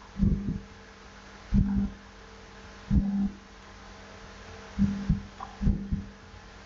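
About five short, dull low thumps at uneven intervals, over a faint steady hum.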